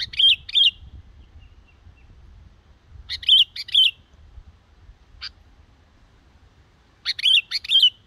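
A young yellow-vented bulbul singing three short, bubbly phrases of quick notes, about three and a half seconds apart, each ending in two louder slurred notes. It is a young bird still practising its song.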